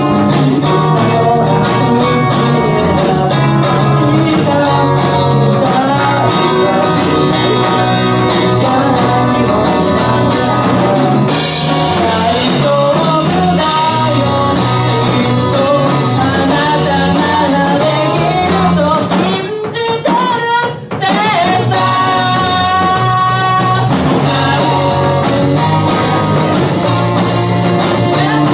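Amplified live rock band: electric guitars and a drum kit playing with a sung vocal. The band drops out briefly about twenty seconds in, then comes back in.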